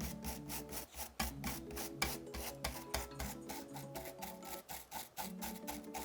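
Quick, irregular scraping strokes of a tool prying and scraping cracked back-glass shards off an iPhone 11 Pro Max's frame, over soft background music with sustained notes.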